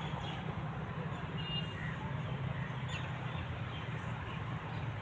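Steady outdoor background rumble, with a few faint bird chirps about a second and a half in.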